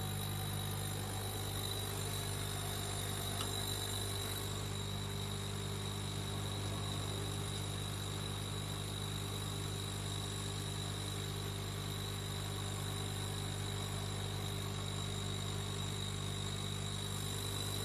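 Steady low hum of running workshop machinery, with a faint high whine above it. A light click about three and a half seconds in.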